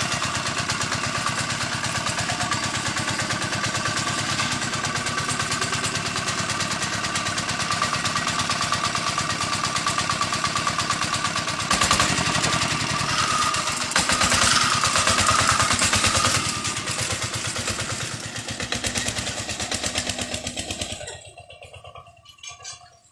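Homemade two-wheeler's Dongfeng single-cylinder diesel engine running with a steady, even pulse. About halfway through it gets louder for a few seconds, and near the end the sound drops away sharply.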